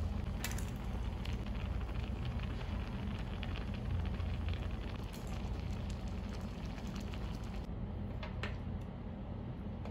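Sukiyaki broth simmering and sizzling in a pan over a portable gas burner, a steady bubbling hiss over a low burner hum. A few sharp clicks of metal chopsticks against the pan, the clearest about half a second in and about eight seconds in.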